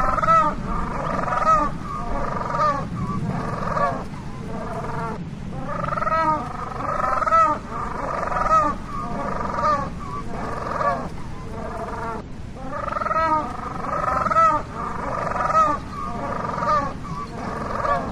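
Penguins calling: long runs of harsh, pitched calls repeated about once or twice a second, some of them arching up and down in pitch, over a low steady rumble.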